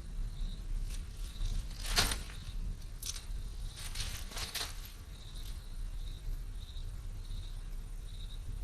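An insect chirping in short, evenly spaced pulses, a bit over one a second, over a low steady rumble. A sharp rustling clatter cuts in about two seconds in, the loudest moment, followed by more clattery rustles a second and two seconds later.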